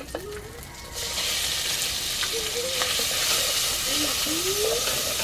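Minced meat sizzling hard in hot oil in a pot, from about a second in, while chopsticks stir it, as the base for a bitter melon soup.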